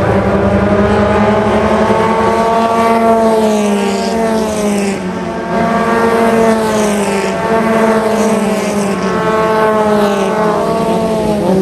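Super FJ formula race car engine running continuously under load, its pitch slowly sagging and climbing again as the revs change.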